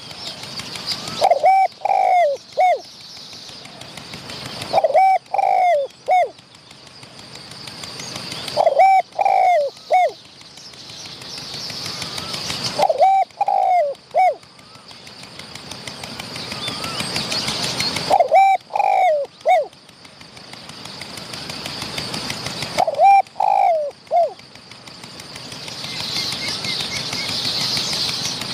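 Spotted dove cooing: six phrases of three or four short notes each, repeated about every four to five seconds. A high hiss swells between the phrases.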